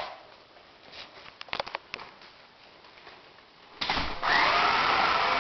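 New Bright Rescue Boom #55 remote-control fire engine's electric drive motor and gears starting up with a steady whir as the toy drives forward, about four seconds in, after a few light clicks.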